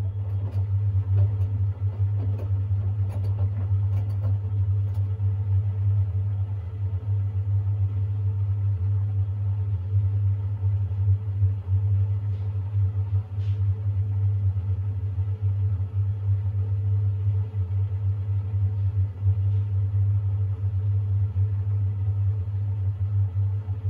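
Siemens iQ700 front-loading washing machine spinning its drum in the intermediate spin between rinses, a steady low hum, with a few light clicks in the first few seconds.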